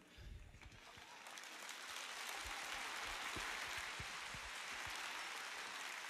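A large arena audience applauding, faint, swelling over the first two seconds and then holding steady.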